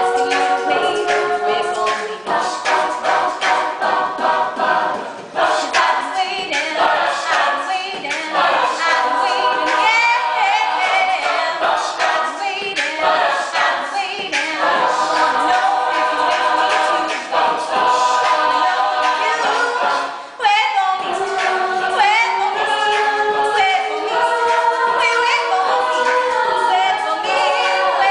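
Mixed-voice a cappella group singing, a female soloist leading over the group's sung backing.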